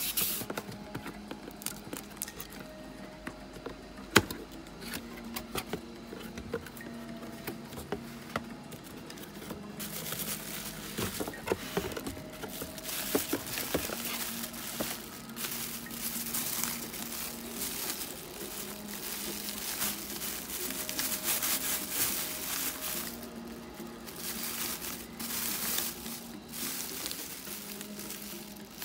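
Cardboard packaging being handled, with a few sharp knocks in the first seconds, then thin plastic bags crinkling as they are handled and pulled off the contents. The crinkling becomes dense and louder from about ten seconds in.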